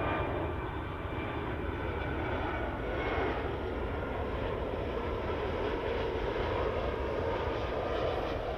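Boeing 757's Rolls-Royce RB211 jet engines on final approach and landing flare, a steady jet noise as the airliner passes low and close. An engine whine sits over it at first and fades after about three seconds.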